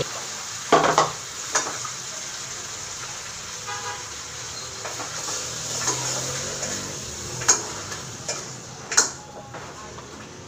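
A metal spoon knocking and scraping against a cooking pot as sliced vegetables are tipped in and stirred on a gas stove: a few sharp clinks about a second in and two more near the end, over a steady hiss. A short horn toot sounds about four seconds in.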